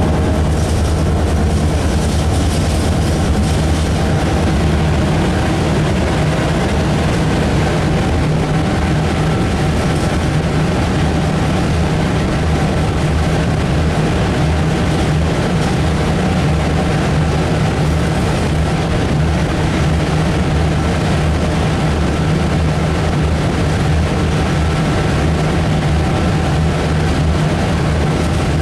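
Diesel locomotive's engine running steadily under way, heard from inside the driver's cab as a constant low hum.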